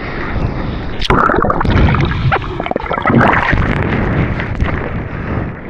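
Seawater rushing and splashing around a close action-camera microphone while surfing, with wind buffeting the mic; a sudden loud surge of water about a second in.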